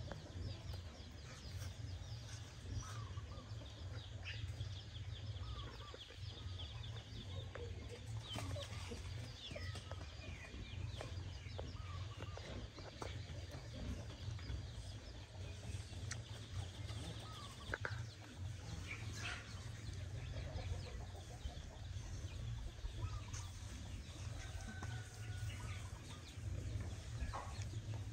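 Chickens clucking, with many short scattered chirps, over a low steady rumble.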